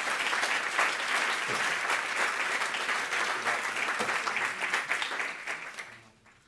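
Audience applauding a speaker onto the stage, a dense steady clapping that dies away over the last second or so.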